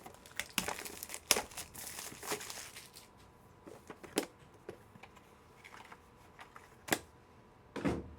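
Plastic wrapping crinkling and tearing as a trading-card box is opened, most densely in the first three seconds. This is followed by scattered sharp clicks and taps of the packaging and card cases being handled.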